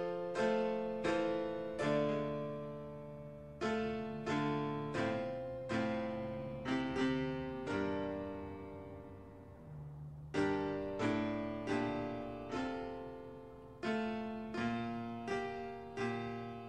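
Slow piano music: chords struck one after another, each ringing and dying away, with one longer held chord fading out before the playing picks up again about ten seconds in.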